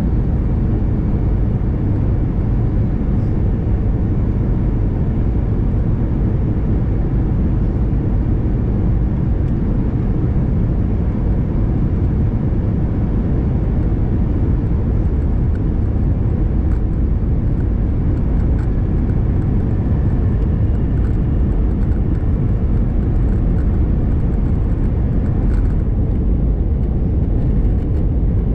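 Steady low rumble of airliner cabin noise heard inside an Airbus A319: engine and airflow noise, unchanging in level.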